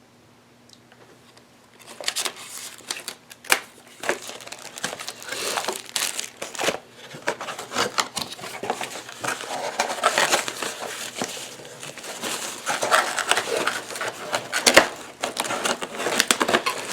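Packaging wrap crinkling and crackling as accessories are unwrapped by hand. It starts about two seconds in and goes on irregularly, with a few sharper crackles.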